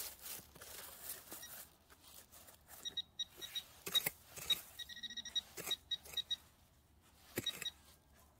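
Metal detector giving short high beeps in quick runs while a hand pick scrapes and knocks into dry soil and pine needles, digging out a signal.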